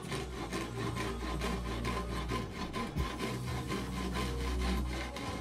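A handsaw cutting through a plywood board in quick, evenly spaced strokes.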